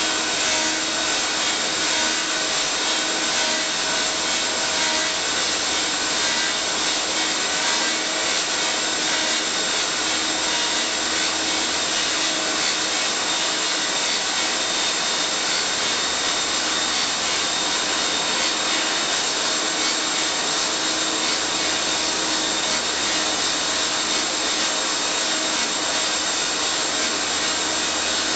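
Elio Valeri 4M/65E wood copy lathe running, its cutters or sanding heads working the wooden blanks: a steady, even rasping noise with faint steady hums under it.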